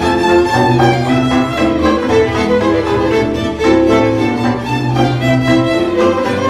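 Hungarian folk string band playing Gömör folk music: several violins carry the melody over violas, cimbalom and a bowed double bass holding long low notes.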